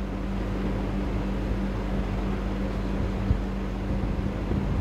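Steady machine hum and hiss, with a constant low drone, like a fan or air conditioner running; one short click about three seconds in.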